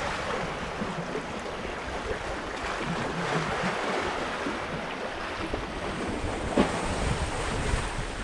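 Small sea waves washing over rocks and pebbles along the shore, with wind buffeting the microphone. A single sharp knock about six and a half seconds in.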